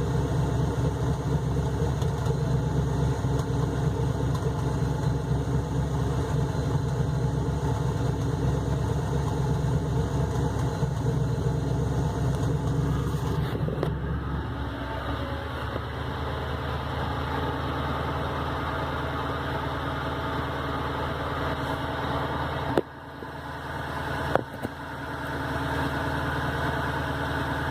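2003 Ford Crown Victoria's 4.6-litre V8 idling roughly, with a lumpy, uneven beat like an engine with a cam. The owner suspects a warped stock intake manifold. About halfway through the sound changes and gets a little quieter, and near the end there are two sharp clicks.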